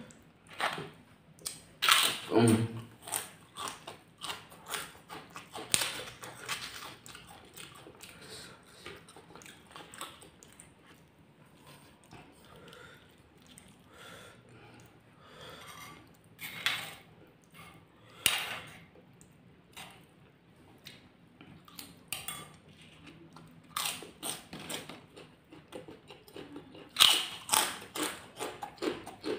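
Close-up eating sounds: kerupuk crackers dipped in chilli paste being bitten with sharp crunches and then chewed, the crunching coming in clusters about two seconds in, around the middle and near the end, with a metal spoon now and then scraping and clinking in a stone mortar.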